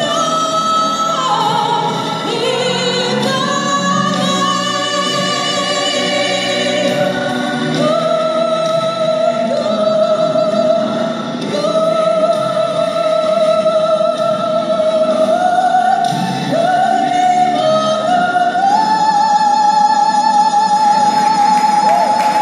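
A woman singing a slow melody with vibrato, ending on a long held high note.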